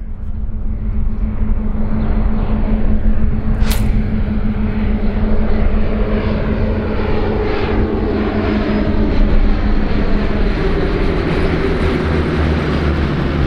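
Three Blackshape propeller light aircraft droning overhead in formation, their engine pitch falling as they pass. There is a single sharp click about four seconds in.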